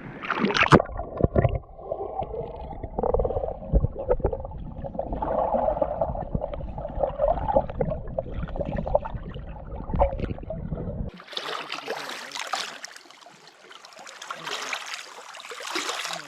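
Muffled gurgling and sloshing of a camera held underwater while swimming, with irregular knocks and thumps. About eleven seconds in it cuts abruptly to a thin, steady hiss.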